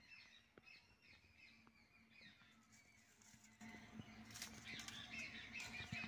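Near silence, with faint bird chirps in the background in the second half and a few light clicks.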